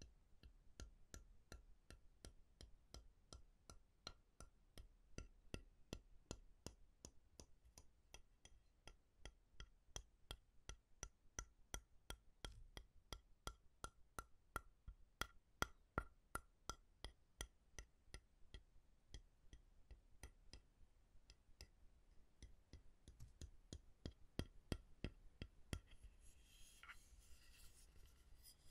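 Quiet, steady tapping on a wooden object, about four taps a second, some with a slight ring. Near the end a light scraping or rubbing sound joins in.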